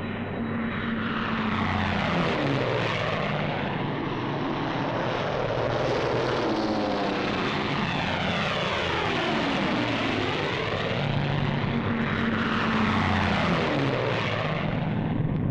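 Piston-engined propeller aircraft running as they fly low past, one after another. The engine pitch slides down as each one passes, and several passes overlap in the middle.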